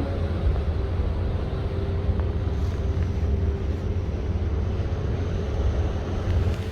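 Steady low rumble of a ship under way, a faint machinery hum running under wind and sea noise.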